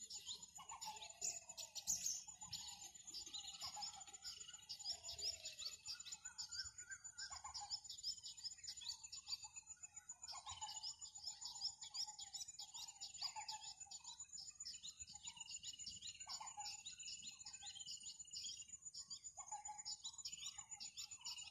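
Many small birds chirping and warbling in a busy, overlapping chorus, over a steady high insect buzz.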